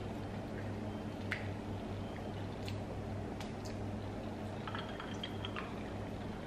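Eating sounds: a wooden spoon clicking against a ceramic bowl a few times, with soft chewing. A little before five seconds in comes a short run of ringing clinks as a glass mug of drink is handled. A steady low hum runs underneath.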